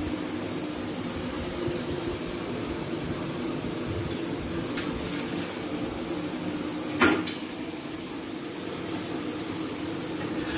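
A steady mechanical hum, with a couple of light clicks and a sharp double clank of metal cookware about seven seconds in.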